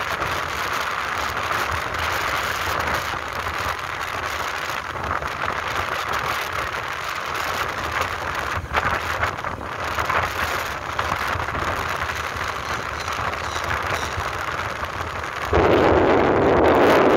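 Wind rushing over the microphone with the engine and road noise of a moving motorbike, a steady noisy rush that grows suddenly louder near the end.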